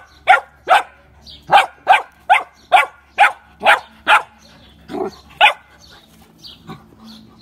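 A puppy play-barking at another puppy: a run of about eleven short, sharp barks, roughly two a second, that stops about five and a half seconds in.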